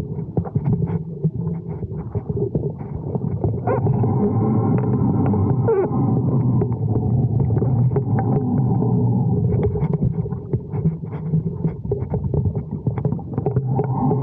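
Wind noise and line vibration on a camera mounted on a kite line: a steady low drone with many short ticks and knocks.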